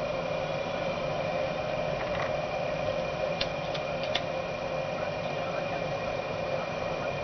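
Electric cooling-system fan running steadily under a PWM speed controller, a constant hum with a thin high tone above it and a few light clicks near the middle.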